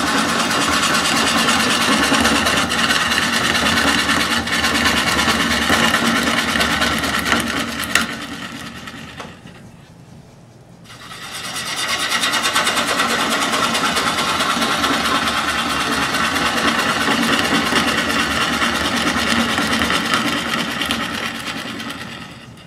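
Bowl gouge cutting into a dry wood blank spinning on a lathe, a steady loud scraping hiss of the cut. About eight seconds in the cut stops with a click and for a couple of seconds only the quieter running lathe is heard, then the cutting resumes and fades out near the end.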